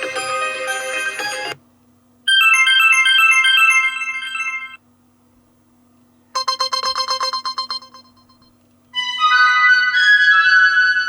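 Built-in ringtones of an ASUS ROG Phone 3 Strix Edition, played one after another as short previews. One melody cuts off about a second and a half in, then three brief electronic chime melodies follow, each stopping abruptly with a short silence before the next.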